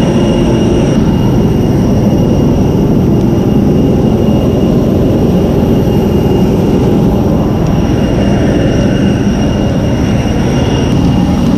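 Loud, steady rumble of a jet airliner's turbines on the apron, with a steady high whine over it.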